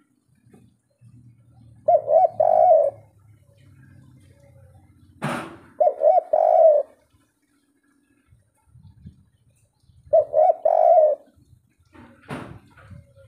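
Spotted dove (tekukur) cooing its three-note 'kuk 3' song in three phrases, each a quick run of coos, about four seconds apart. A sharp click falls between the first two phrases.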